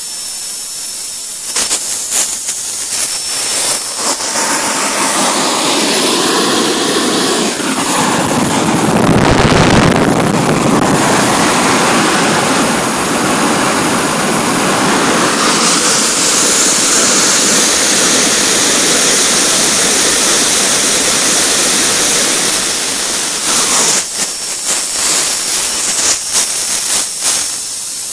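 Kerosene-fuelled home-built model turbojet with a 60 mm compressor wheel, running at around 50,000 rpm: a loud rushing exhaust noise with a steady, very high-pitched turbine whistle on top. The rushing deepens and swells for a few seconds near the middle, then the hiss brightens again.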